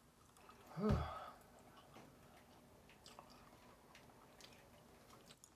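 A woman chewing a mouthful of mac and cheese, with soft wet mouth clicks, and one short voiced sound from her about a second in.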